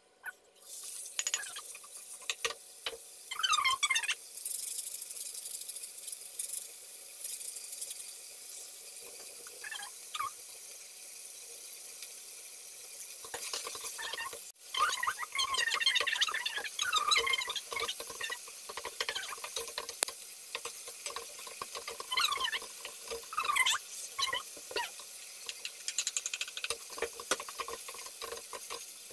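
Minced beef sizzling in olive oil in a hot wok, with a wooden spoon repeatedly scraping and stirring it against the pan in short, squeaky strokes.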